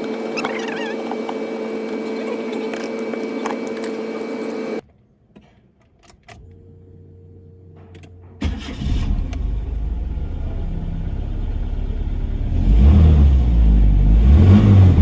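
Nissan Sentra engine catching and starting about halfway through, then running and revved up twice near the end. Before it, a steady hum cuts off suddenly about a third of the way in.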